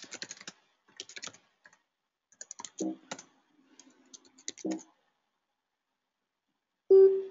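Typing on a computer keyboard: short runs of key clicks with pauses between, as shell commands are entered. About seven seconds in, a short, loud steady tone.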